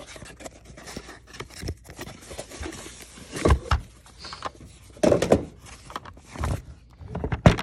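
Cardboard shipping box being opened and unpacked by hand: rustling and scraping of box and plastic packing, with several knocks and thumps, the loudest about three and a half seconds in and again about five seconds in.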